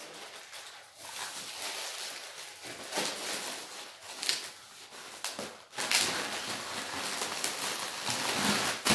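Plastic packaging rustling and crinkling as instant noodle packets are handled, with a few light knocks; louder from about six seconds in.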